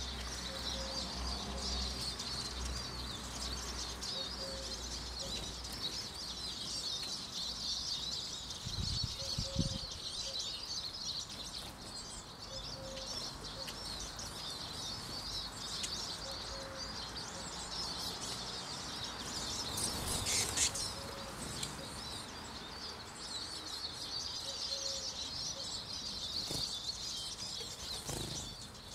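A flock of Eurasian siskins twittering, a fast, continuous high chatter that eases off midway and builds again near the end. A brief louder rustle comes about twenty seconds in.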